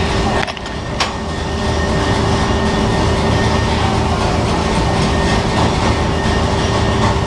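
A machine running loudly and steadily with a constant hum. It dips briefly about half a second in, and a sharp click comes about a second in.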